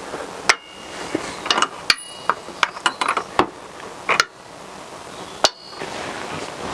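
Metallic clicks and clinks of a socket wrench working the loosened clutch centre nut on a motorcycle engine: a few sharp clicks a second or more apart, with smaller ratchet-like ticks and brief metal ringing between them.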